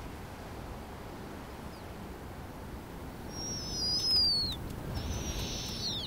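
Snowy owl calls: two high, thin whistled screeches about a second apart, each held steady and then falling away at the end, the second a little hoarser.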